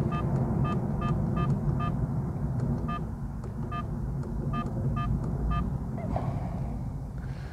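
IIWEY 1080p dash cam's button key-tone beeping as its settings menu is scrolled: about a dozen short electronic beeps, quick at first and then more spaced out, stopping about five and a half seconds in. A steady low rumble runs underneath.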